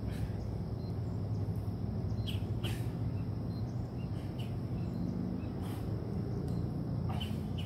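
Birds chirping a few times, short high calls, over a steady low outdoor rumble.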